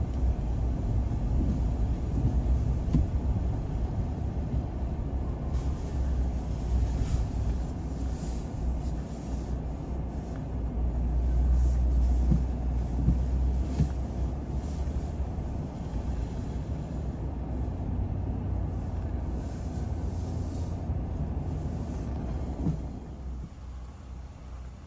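Car driving along a road: a steady low rumble of engine and tyre noise, dropping off near the end as the vehicle slows.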